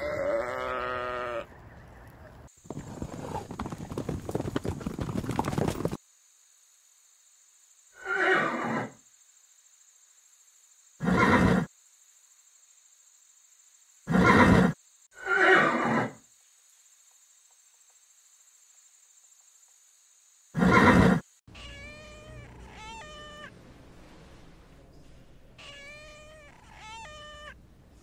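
A goat bleating at the start, then horses giving five short calls spread through the middle, and kittens mewing in a run of high cries near the end.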